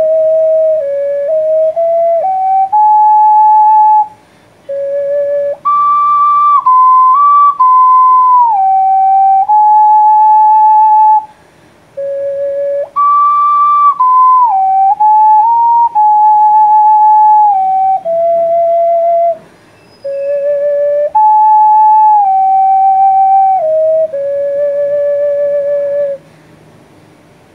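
Six-hole ocarina playing a slow melody of clear, pure held notes that step up and down, in four phrases with short pauses for breath, the last note stopping about a second before the end.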